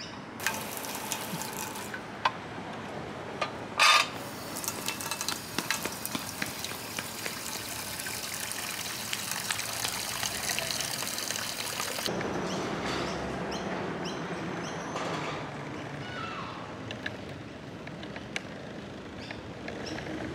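Water pouring into a container, refilling a pigeons' empty water dish: a short pour, a sharp knock about four seconds in, then a steady pour of about eight seconds that stops near twelve seconds.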